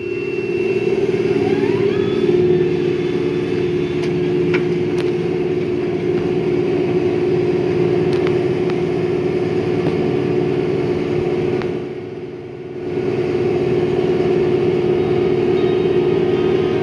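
John Deere 5100 E tractor's diesel engine running steadily under load while pulling a round baler in the field, a constant drone that drops briefly about twelve seconds in.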